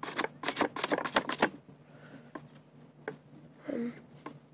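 A folded-paper origami Atom Smasher being handled and flexed: a quick run of crackling, crinkling paper for about a second and a half, then fainter rustling.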